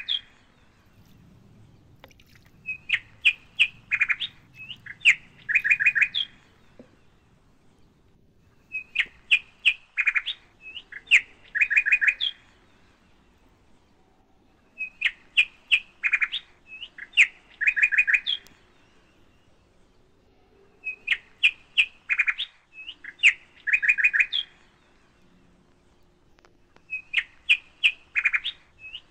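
A bird singing the same phrase again and again: a few sharp chirps running into quick trills, lasting about three to four seconds and repeated about every six seconds.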